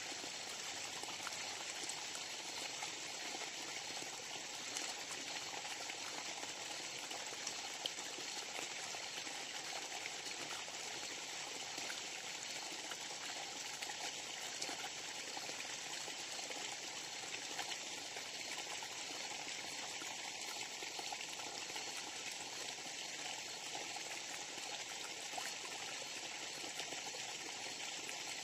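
Small forest stream running, a steady, even rush of water.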